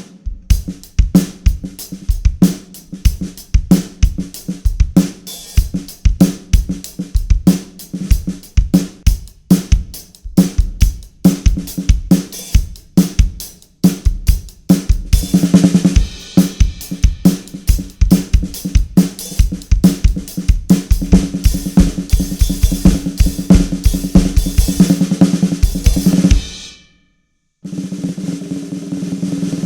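Drum kit played with a Big Fat Snare Drum 'The Original' pad lying on the snare head, which gives a fat, dampened vintage snare sound. The first half is a steady beat of kick, snare and cymbals. It then turns into fast, dense fills. Near the end the playing stops for a moment, then a snare roll starts.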